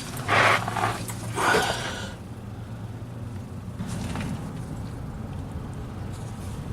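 Two loud, heavy breaths from a person straining, a short huff and then a longer sigh-like exhale, within the first two seconds. They are the effort of torquing a tight differential fill plug. The rest is quiet with a low steady hum.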